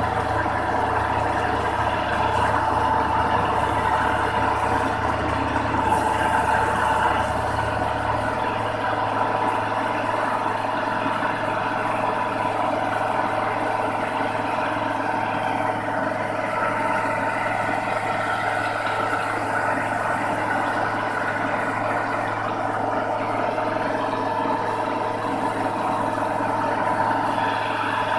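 Skyroad combine harvester running steadily while its unloading auger discharges threshed rice grain onto a heap.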